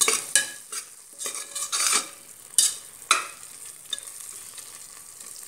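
A steel spatula stirring and scraping a thick onion-tomato masala around a pressure cooker pot. About a dozen quick irregular scrapes come in the first three seconds or so, then the masala sizzles softly and steadily as it fries.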